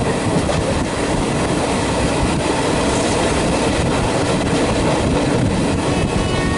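Coaches of the Kerala Express running past at speed: a loud, steady rumble with wheels clicking over the rail joints.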